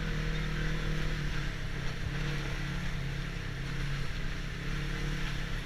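ATV engine running at a steady speed, with wind rushing over the microphone.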